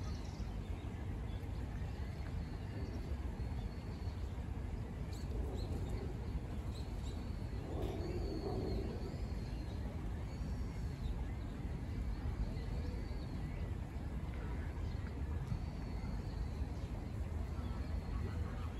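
Outdoor ambience: a steady low rumble, with faint high chirps from birds now and then.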